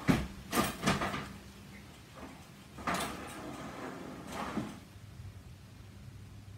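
Handling knocks and scrapes at a van's open rear door: a cluster of sharp knocks in the first second, another about three seconds in, and a last one near four and a half seconds.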